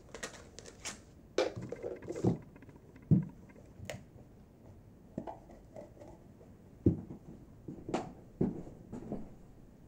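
Hands handling 3D-printed nylon pots and vases: flexing a stretchy pot and setting pieces down, giving scattered light taps and rustles with a few dull knocks. The loudest knocks come about three and seven seconds in.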